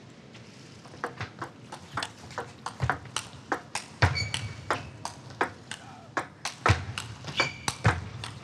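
Table tennis rally: the ball clicking sharply off bats and table several times a second, starting about a second in, with a few low thumps and short squeaks from the players' footwork.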